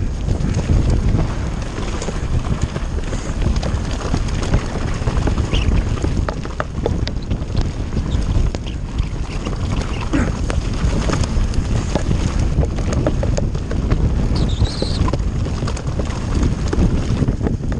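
Kona mountain bike riding fast down a rough stony track: wind buffeting the camera microphone as a steady low rumble, with the tyres crunching over gravel and the bike clattering and ticking over the rocks. A brief high squeak sounds about fifteen seconds in.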